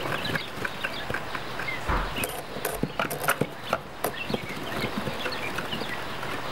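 Quail chicks peeping in many short high chirps, with scattered taps and rustling as they peck and scratch at the plastic trough feeder and the wood shavings.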